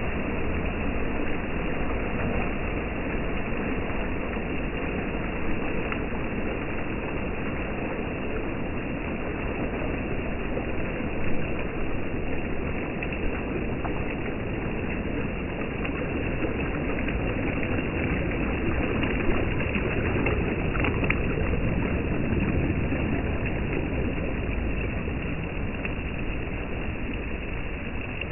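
Small waves washing in and lapping over shallow water at the shoreline, a steady rushing noise with a few brief knocks.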